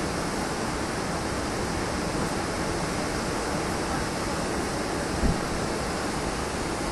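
Heavy flowing water rushing steadily, with a brief low thump about five seconds in.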